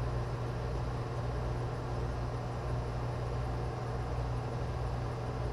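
Steady low electrical hum with a soft background hiss, unchanging throughout.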